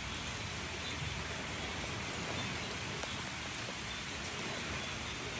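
Steady heavy rain falling on hard ground, with a few sharp drop taps standing out.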